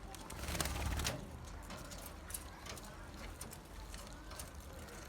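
Budgerigars chirping and chattering softly, with a brief rustling noise in the first second and scattered small clicks.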